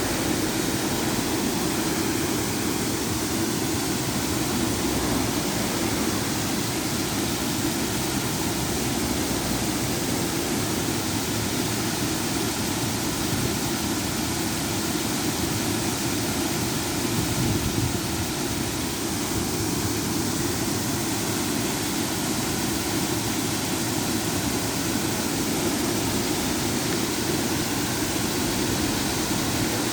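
Small river waterfall: water pouring over a low drop with a steady, even rushing.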